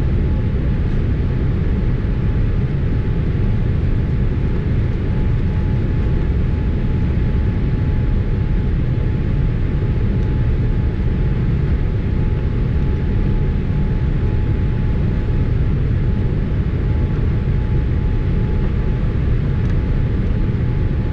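Boeing 787 cabin noise: a steady, unbroken rumble of engines and airflow heard from inside the passenger cabin, with a faint steady whine above it.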